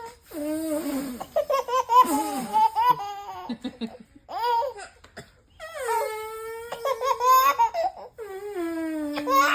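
A baby laughing in short choppy bursts, then giving long, high, drawn-out cries that fall in pitch in the second half.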